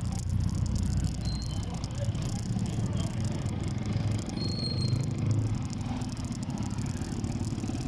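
Wind buffeting the microphone over a steady low rumble of a ride along a street, with two brief faint high squeaks.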